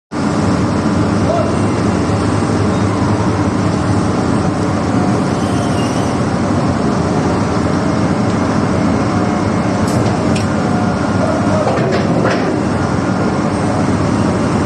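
Doosan 420 excavator's diesel engine running steadily under load, with a few short metallic clanks about ten and twelve seconds in.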